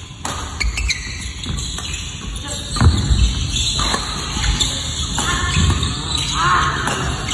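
Badminton rally sounds on a wooden hall court: racket strikes on the shuttlecock and players' footfalls, the loudest thud about three seconds in.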